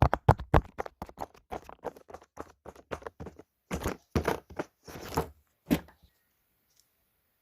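Fidget toys being clicked and tapped in quick succession, about four to five sharp clicks a second, followed by a few longer, noisier strokes; the sounds stop about six seconds in.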